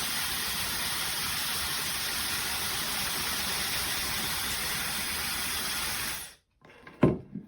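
OSOU 1200 W high-speed hair dryer blowing, a steady rushing hiss that is switched off about six seconds in. It is followed by two short, louder sounds near the end.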